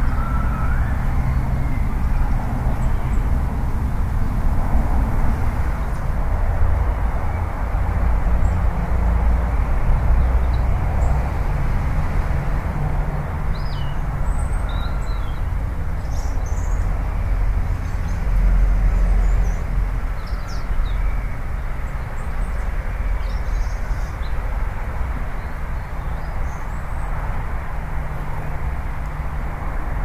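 Steady outdoor rumble and hiss, strongest in the low end, with a few faint high bird chirps through the middle stretch.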